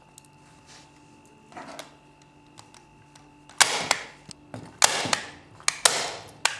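Quiet fabric handling, then a staple gun fired three times about a second apart, each a sharp snap as a staple is driven through fabric into a softboard (Pinex).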